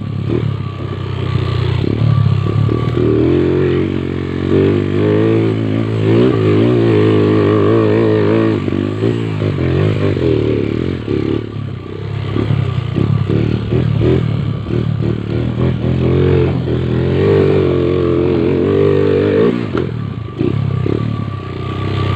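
Motorcycle engine running hard and revving up and down continuously, its pitch rising and falling as the throttle is worked, with some clatter mixed in.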